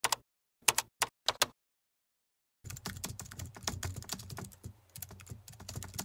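Computer keyboard typing: a few separate key clicks in the first second and a half, then a run of fast, continuous typing from about two and a half seconds in.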